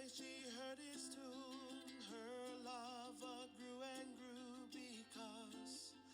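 Background music: a voice singing long, wavering notes with vibrato over plucked strings.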